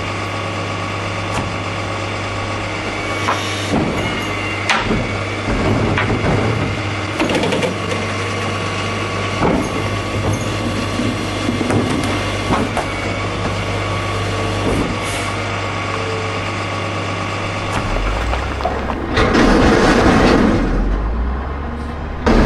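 Garbage truck engine running steadily while trash tumbles into the hopper, with scattered knocks and rattles. A louder rushing noise rises near the end.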